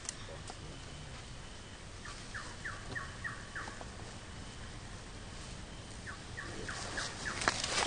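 A bird calling in two runs of short, quick falling notes, about three a second, with a few sharp rustles or clicks near the end.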